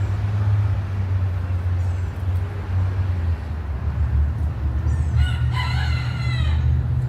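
A rooster crows once, about five seconds in, in one call of about a second and a half. A steady low rumble runs underneath the whole time.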